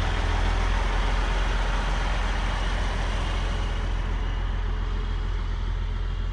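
A motor vehicle's engine running steadily: a low rumble under a broad hiss, with the highest part of the hiss easing about four seconds in.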